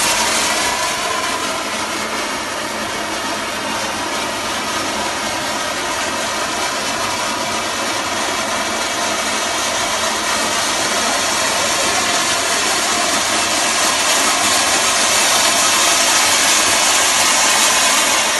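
Handheld sparkler gun firing a fountain of sparks, a steady, even hiss that holds throughout.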